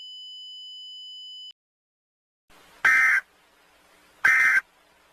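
Emergency Alert System SAME end-of-message data bursts: two short, identical buzzy digital bursts about a second and a half apart over a faint hiss, marking the end of the alert. Before them a steady high tone cuts off about 1.5 s in.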